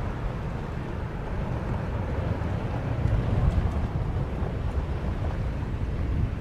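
Boeing 787-8 Dreamliner's twin jet engines at takeoff power, a steady low rumble as the airliner climbs away just after liftoff, with wind buffeting the microphone.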